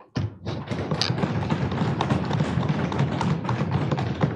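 Many members of parliament thumping on their wooden desks, a dense, loud patter of knocks starting a moment in: desk-banging applause in approval of a speech just ended.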